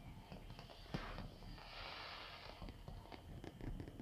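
Fireworks display: a run of pops and crackles, with a sharper bang about a second in and a crackling hiss around the middle.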